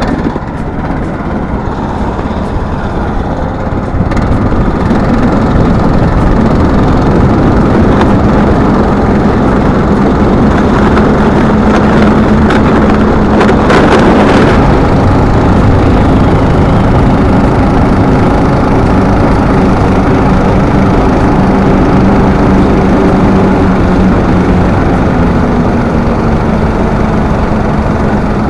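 Boat's outboard motor running steadily under way. It grows louder about four seconds in and rises a little in pitch near the end, with a steady rush of wind and water noise under it.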